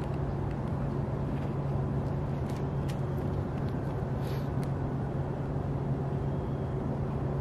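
Steady outdoor background rumble with a constant low mechanical hum under it and a few faint ticks.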